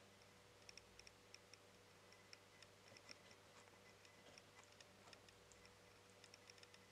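Faint, quick wet clicks of a sugar glider's tongue lapping milk from the tip of a feeding syringe, irregular, several a second.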